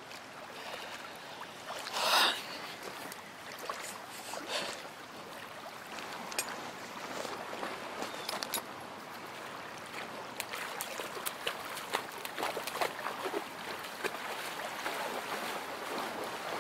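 Lake water splashing and lapping as a person swims and wades through the shallows, with one louder burst about two seconds in and frequent small splashes in the second half.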